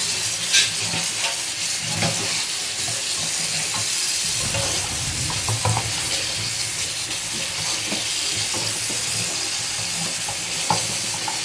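Tap water running steadily into a stainless steel bowl in a steel sink, splashing over pork trotters as hands rub and turn them in the stream, with a few small knocks.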